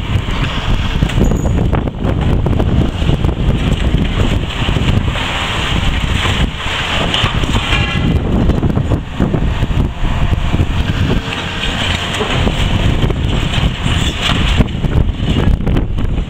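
Demolition excavator's engine and hydraulics running as it works into the building, buffeted heavily by wind on the microphone.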